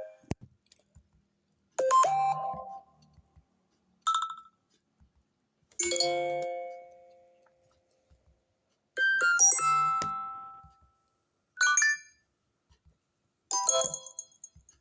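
iPhone XR alert tones from its built-in text-tone set, played one after another through the phone's speaker: six short chimes, dings and bleeps, each under about two seconds, with gaps between them. Under several of them is a short low buzz.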